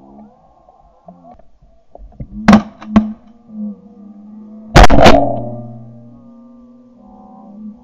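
Shotgun shots: two about half a second apart, then a louder double shot about two seconds later, with a ringing tail that fades over a second or two. Geese honk in between.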